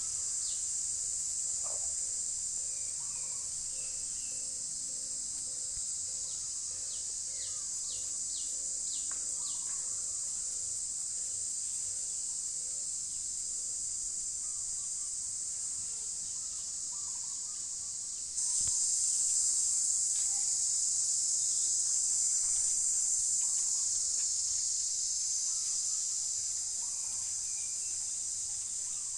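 A steady, high-pitched insect chorus drones without a break. It jumps louder suddenly about two-thirds of the way through, and faint bird chirps come and go over it.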